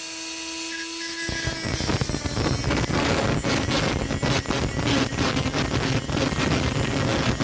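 Electric tungsten sharpener running with a steady whine, then grinding a TIG tungsten electrode to a point from about a second in: a harsh, real loud grinding noise that carries on to the end.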